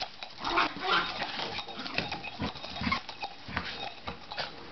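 Dachshund barking in short, repeated bursts.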